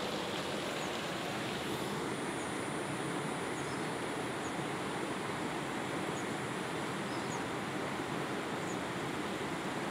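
Steady rushing of a shallow, rocky river. Faint high chirps sound about once a second, and a thin high insect buzz comes in about two seconds in.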